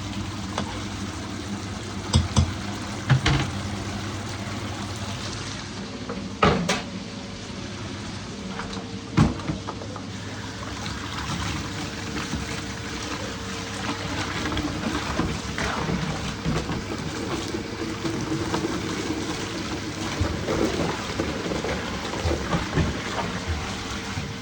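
Kitchen tap water running steadily into a sink while dishes are washed, with several sharp clinks and knocks of dishes in the first ten seconds.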